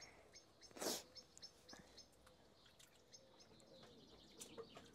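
Mostly quiet lettuce rinsing in a plastic bowl of water at a steel sink: one brief splashy rustle about a second in, then faint drips and small clicks. Faint bird chirps in the background.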